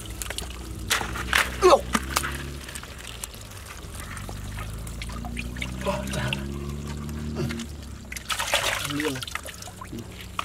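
Wet sand and muddy water trickling and splashing as bare hands scoop crabs out of a wet sand hole, with scattered clicks from the handling.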